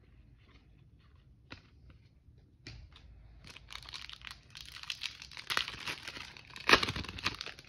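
A few light clicks of trading cards being handled, then a foil Panini Absolute football card pack crinkling and tearing open, loudest near the end.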